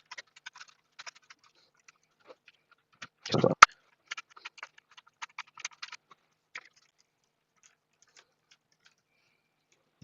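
Small clicks and ticks of a stubby screwdriver and bit turning screws out of a Hart 20-volt battery pack's plastic case. A louder knock comes about three and a half seconds in.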